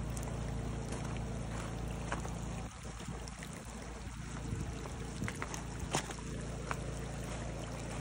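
Wind buffeting the microphone with a steady low noise that dips briefly about three seconds in, over a faint trickle of rainwater running off across stony desert ground. A few light crunches of footsteps on gravel sound through it.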